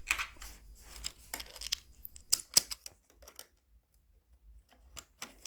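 Handling noise from fitting a RAM module into an iMac's memory bay: a scatter of small clicks and scrapes, then a quieter stretch and one sharper click near the end.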